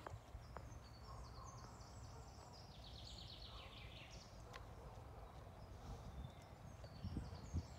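Faint open-air ambience with a steady low rumble. About three seconds in, a songbird sings a short trill of quick notes that step down in pitch. A few soft low thumps come near the end.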